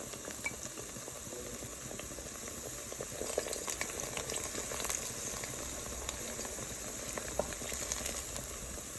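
Ripe plantain slices frying in hot oil in a stainless steel pan: a steady sizzle with many small crackles and pops.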